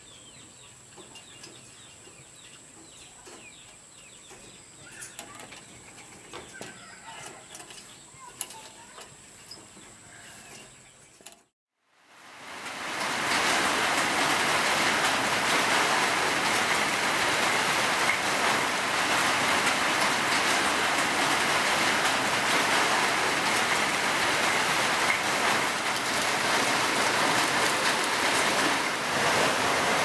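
Faint outdoor ambience with scattered small clicks and a thin steady high tone, broken by a second of silence about twelve seconds in. Heavy rain then pours steadily onto concrete pavement, loud and even.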